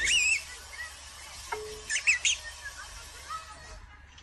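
Bird chirps played by a tablet game: a quick pair of high, warbling chirps at the start and a cluster of three about two seconds in.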